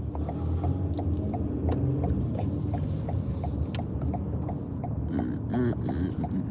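Car interior while driving: a steady low engine and road rumble, with a regular run of light ticks about three a second.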